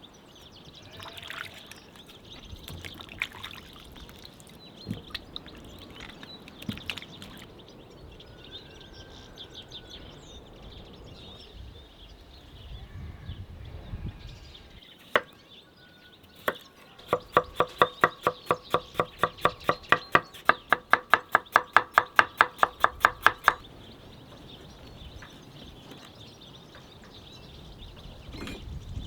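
Knife chopping quickly on a cutting board: a fast, even run of about six ringing knocks a second lasting some six seconds, after a few scattered knocks and clinks.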